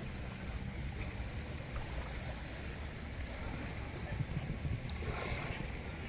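Small sea waves lapping at the shore, with wind buffeting the microphone as a low rumble; a wave washes in with a brief rush about five seconds in.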